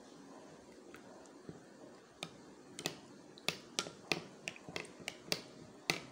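Metal spoon clinking against a glass bowl while stirring gelatin into water. Sharp, irregular ticks start about two seconds in, come roughly twice a second and grow more frequent near the end.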